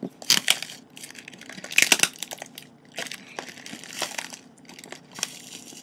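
Packaging being handled as a shipping box is opened: irregular crinkling and crunching, loudest in a few short spells about a third of a second, two seconds and four seconds in.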